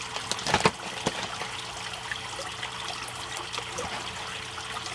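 Water trickling and splashing steadily into an aquaponics fish tank, over a low steady hum. A few sharp knocks come about half a second in, and one more about a second in.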